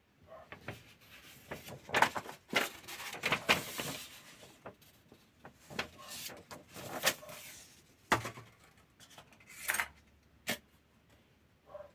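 Plastic model kit and its packaging being handled: a run of sharp clicks and light knocks mixed with rustling, busiest about two seconds in and again around six to seven seconds.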